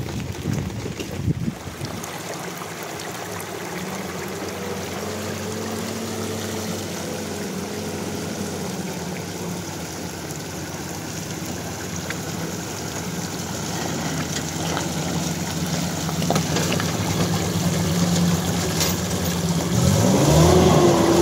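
Pickup truck engine running as the truck pulls away and comes closer, growing louder and revving up near the end, over muddy rainwater runoff rushing down a roadside gutter. There are a few knocks in the first second or so.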